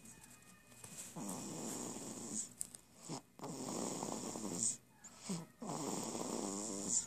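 Snoring in a slow, even rhythm: three long breaths of a second or two each, with short pauses between.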